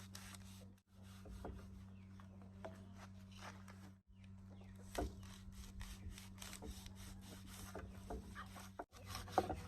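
Light knocks and rubbing of objects being handled, over a steady low electrical hum; the sound cuts out briefly three times.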